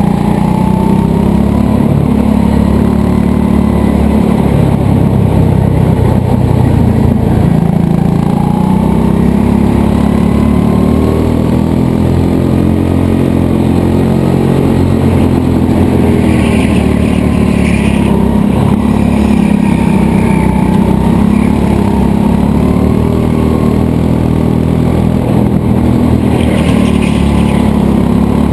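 Racing go-kart driven hard around a track, heard onboard: a loud, steady motor note whose pitch rises and falls as the kart speeds up and slows for the corners.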